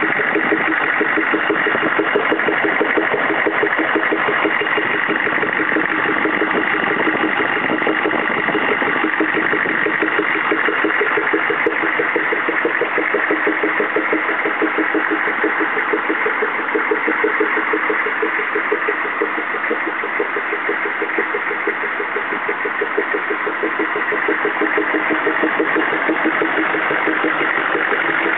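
CUCV-II's 6.5 L V8 diesel engine idling steadily, with a rhythmic popping noise running along with it.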